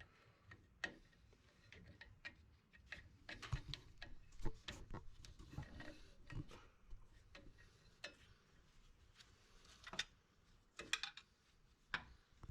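Irregular light metallic clicks and clinks of drum-brake hardware being worked by hand as a brake spring is stretched to hook onto the shoe's pivot arm.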